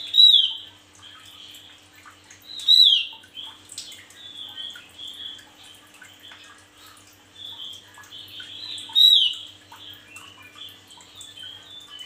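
Male Javan grey-throated white-eye (opior jawa) singing. Three loud, sharp notes slide downward, one at the start, one about three seconds in and one about nine seconds in, with soft chattering twitters between them.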